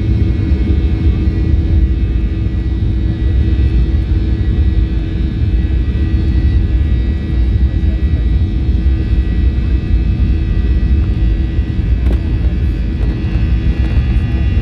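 Boeing 737-800's CFM56-7B turbofan engines heard from inside the cabin, running steadily during taxi: a constant low rumble with a steady hum and a faint thin whine, and no spool-up.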